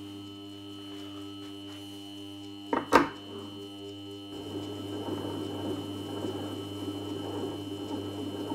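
Polishing machine motor humming steadily while a watch case is held in a polishing vise against a spinning cotton buffing wheel with polishing paste; two sharp knocks come close together about three seconds in, and after about four seconds a rough rubbing noise of the case on the buff rises over the hum.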